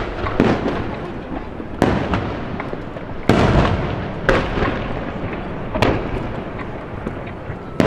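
Aerial firework shells bursting one after another, about half a dozen loud bangs spaced one to two seconds apart, each followed by a long rolling echo that fades into the next.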